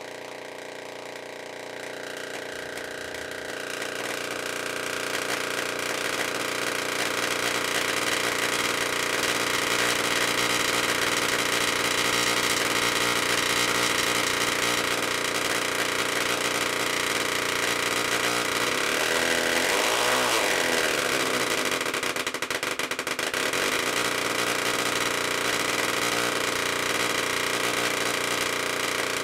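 Solid-state Tesla coil breaking out into the air from a screw on its toroid: a loud, steady electrical buzz made of several pitches at once, set by the coil's interrupter, growing louder over the first few seconds. About twenty seconds in its pitches bend up and down as the frequency and duty cycle are being varied.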